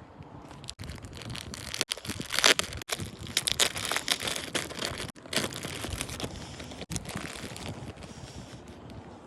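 Crinkling and rustling of handled material, in short crackly bursts. The sound breaks off abruptly several times.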